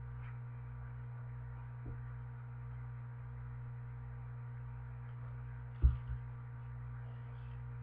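Steady low electrical hum, mains hum on the recording, with one brief knock about six seconds in as the picture book is handled.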